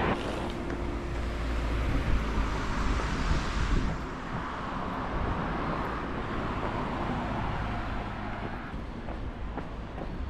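Road traffic: a vehicle passes close by, its tyre and engine noise swelling and fading over the first four seconds, followed by a steadier, lower traffic rumble.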